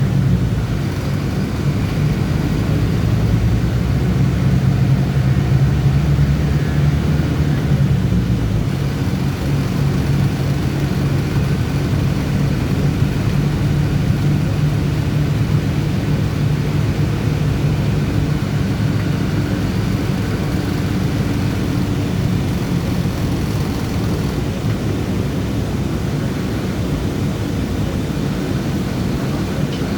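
City bus engine running while driving, a steady low drone with road noise; the engine's low note eases off about halfway through.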